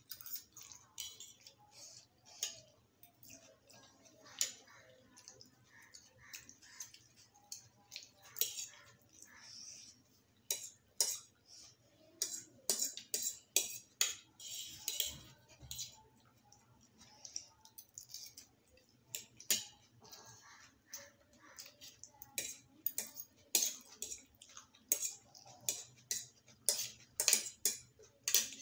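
Steel forks scraping and tapping on disposable paper plates while eating noodles, in quick irregular clicks that grow denser about a third of the way through.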